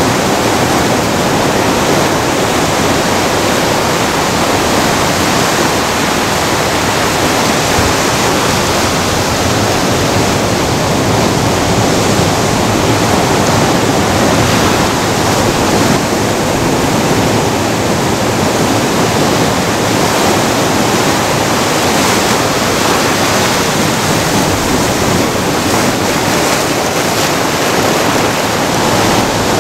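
Ocean surf breaking and washing around rocks: a loud, continuous rush of white water.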